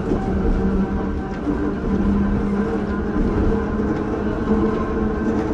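Ueda Kotsu MoHa 5253 round-window electric railcar running, heard from aboard: a steady low rumble with a humming motor tone that shifts slightly in pitch.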